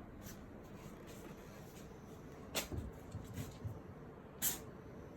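British Shorthair and Norwegian Forest Cat sparring: soft paw thumps and scuffling, with a sharp knock about two and a half seconds in and another short sharp sound near the end, over a faint steady room hum.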